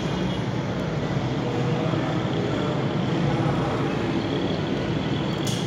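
Steady din of busy city road traffic: cars, motorcycles, auto-rickshaws and trucks passing below. There is a brief click near the end.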